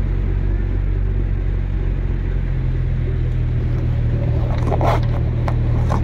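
A 4x4 vehicle's engine running with a steady low drone as it drives through a shallow river crossing, with water rushing and splashing around the wheels; a few sharper splashes or knocks come about five seconds in.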